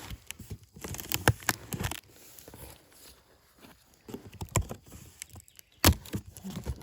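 Scattered taps, scrapes and knocks of a cardboard box being handled while its packing tape is slit open with a deer antler, with a sharp knock near the end.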